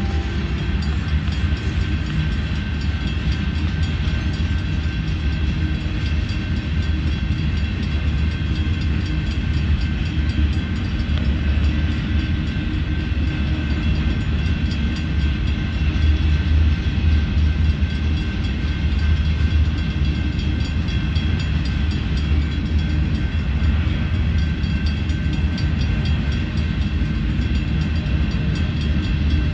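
Freight cars of a slow-moving manifest train rolling past: a steady low rumble of wheels on rail, with a faint, steady high whine above it.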